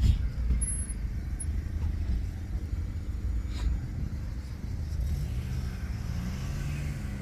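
A car in motion, with a steady low rumble of engine and road, a sharp click at the start and another about three and a half seconds in.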